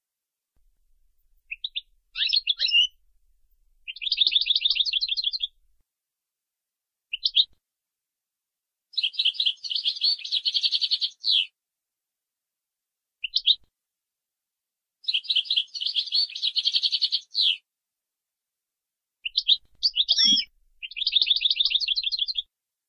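European goldfinch singing in separate phrases a few seconds apart, in the Moroccan Boujaad 'louidania' song style: short twittering notes alternating with rapid trills of evenly repeated notes, each trill about two seconds long. Clean recording with silence between the phrases.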